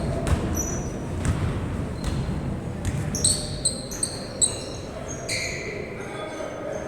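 A ball bouncing hard on a court during a game: a handful of sharp knocks over a steady background din. Short high squeaks come in a cluster between about three and five seconds in.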